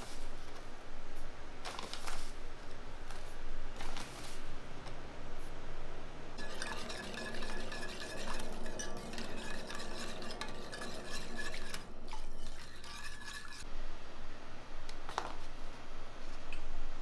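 Wire whisk stirring a thick milk mixture in a stainless steel saucepan, clinking and scraping rapidly against the metal for about seven seconds in the middle. Before and after it come a few scattered clinks of a spoon.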